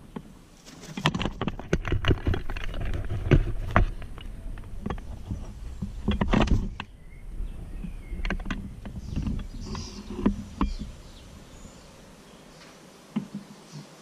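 Irregular close knocks, taps and rattles from the hanging wire bird feeder and the camera fixed to it as the feeder is jostled and swings, busiest in the first half and thinning to a few taps near the end.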